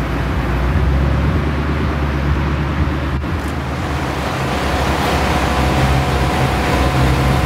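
Ford Mustang Shelby GT500 'Eleanor' V8 rumbling at low speed, steady throughout, with a single short click about three seconds in.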